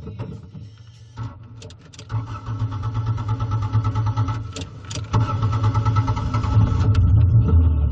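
Toyota MR-S's 1ZZ-FE 1.8-litre four-cylinder engine with stock exhaust starting up after a spin, a couple of clicks then the engine catching about two seconds in and running steadily, getting louder near the end as the car pulls away.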